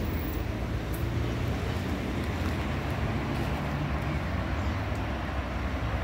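Steady low rumble of road traffic from a nearby avenue.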